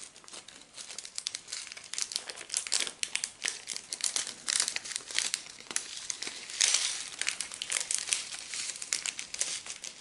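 Foil packet of diamond painting drills crinkling and crackling as it is handled and pulled open by hand, with the most crinkling a little past the middle.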